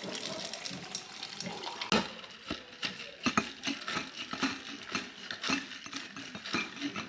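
Irregular clicking and rattling, many sharp clicks, the loudest about two seconds in and again a second later.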